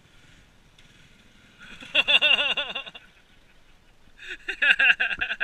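A person's voice in two bursts of quick repeated syllables, the first about one and a half seconds in and the second near the end.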